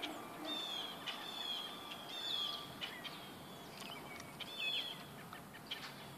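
Songbirds chirping and whistling, many short high calls, some sweeping down in pitch, one after another and sometimes overlapping, over a faint outdoor hiss.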